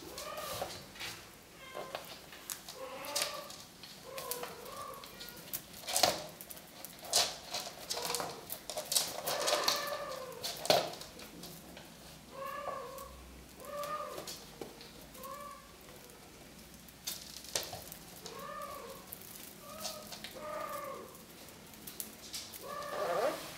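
Kittens mewing in many short, arching calls, over and over, mixed with sharp clicks and taps as they scramble on a wooden floor playing with a feather wand toy.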